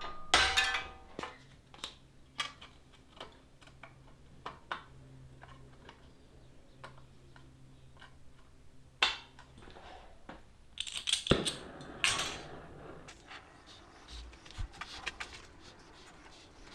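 A couple of ringing hammer blows on metal at the start, then scattered light metallic clinks, one sharp clink about nine seconds in and a brief clatter of metal being handled a couple of seconds later.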